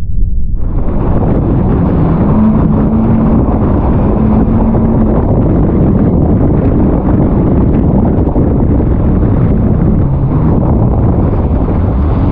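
Jet ski running at speed, its engine tone faintly rising and falling under heavy wind buffeting the microphone and the rush of water and spray. Muffled for about the first half second, then opens up.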